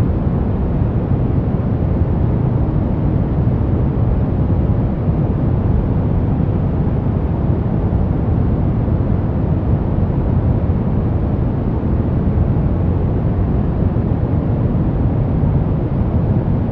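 Steady, unbroken noise played as a relaxation 'white noise' track, deep and rumbling rather than hissy, with no change in level or pitch.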